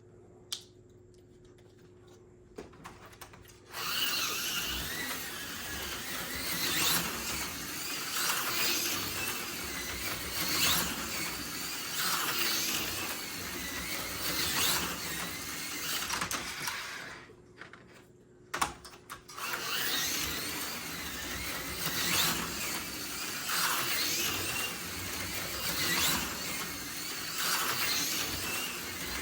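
HO-scale AFX Super G-Plus slot car, fitted with a new rear axle and 22-tooth axle gear, running laps on its track: the small electric motor and gears whine, louder each time it passes, about every two seconds. It starts about four seconds in, stops briefly past the middle with a couple of clicks, then runs on again.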